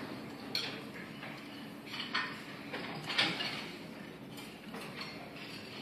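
Dishes and cutlery clinking: a handful of sharp, separate clinks over a faint steady background.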